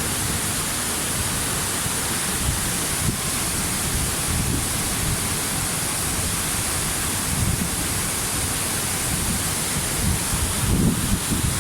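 Waterfall: a steady rush of falling water, with low gusty rumbles near the end.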